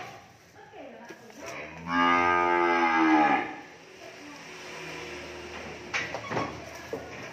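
A cow moos once, a loud call of about a second and a half that falls in pitch as it ends. A few light knocks follow a few seconds later.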